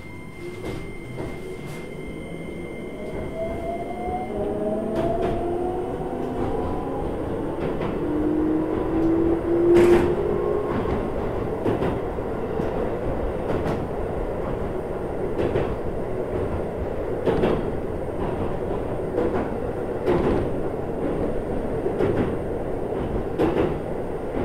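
Keikyu New 1000 series electric train pulling away from a station, heard from inside the car. The traction motor whine rises in pitch over the first ten seconds or so as it accelerates, then it runs steadily with the wheels clicking regularly over the rail joints.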